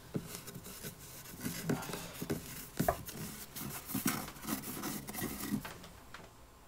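Irregular scratching and rustling with scattered sharp clicks, dying away about six seconds in.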